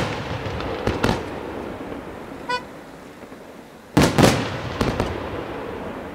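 Aerial firework shells bursting with loud sharp reports: a double burst about a second in, and a tight cluster of several about four seconds in, with a fading noisy tail between the bursts. A brief high toot sounds once about two and a half seconds in.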